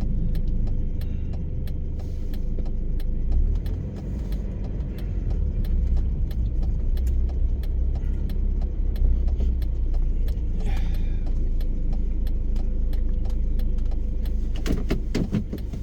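A car running with a steady low hum, heard from inside the cabin, with a regular ticking of about three ticks a second over it.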